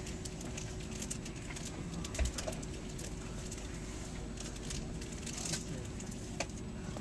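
Steady low hum inside a train carriage standing at a station, with a faint steady tone and scattered light clicks and ticks.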